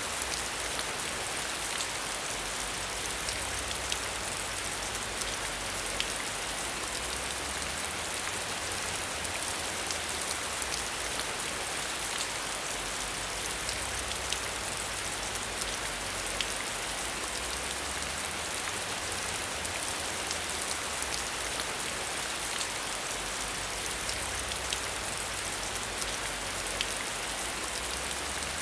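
Steady rain, a constant hiss with scattered sharp ticks of individual drops striking a surface.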